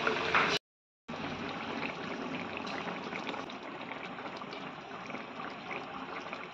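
Spiced egg-and-potato curry gravy simmering in a kadai, bubbling steadily with small pops. The sound drops out briefly about half a second in.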